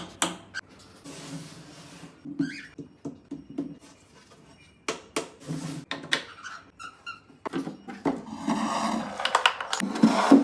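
Bird breeding boxes being unpacked and handled: a run of knocks, taps and rustling, with a longer scraping rustle near the end and a few short high chirps among them.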